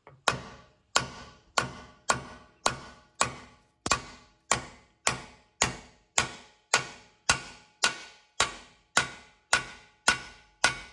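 A hammer tapping an indicator pin through the attachment plate of a Case TR310B loader: about twenty even strikes, a little under two a second, each with a short metallic ring.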